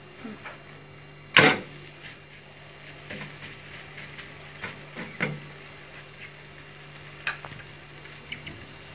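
A crepe cooking in a nonstick frying pan with a faint steady sizzle. A spatula and the pan knock a few times, the loudest knock about one and a half seconds in.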